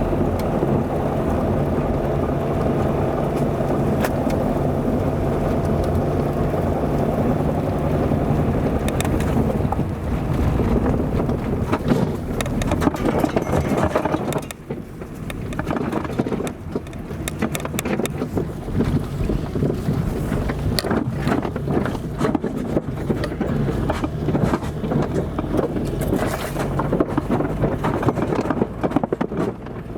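Car driving on an unpaved dirt road, its engine running steadily. From about ten seconds in, the ride turns rough, with frequent knocks and rattles from the wheels and body.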